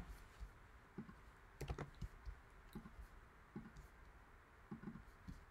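Faint computer keyboard keystrokes and mouse clicks, a dozen or so short taps at irregular intervals.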